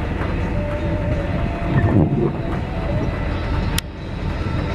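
Strong storm wind buffeting the microphone: a steady low rumble with a faint wavering whistle, surging louder in a gust about two seconds in. The noise drops out for a moment near the end.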